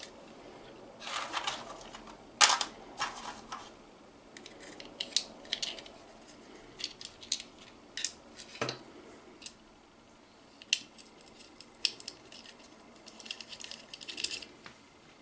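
Scattered clicks and light clatter of a plastic battery holder and aluminium robot-kit parts being handled and fitted together, with a sharp click about two and a half seconds in and a duller knock near nine seconds.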